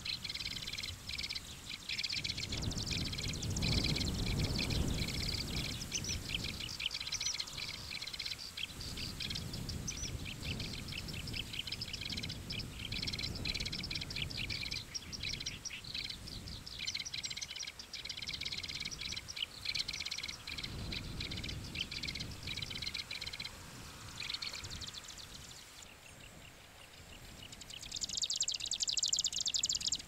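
Marsh grassbird singing: a long, rapid run of quickly repeated scratchy notes that keeps going until about four-fifths of the way through. Near the end a denser, higher chattering burst follows.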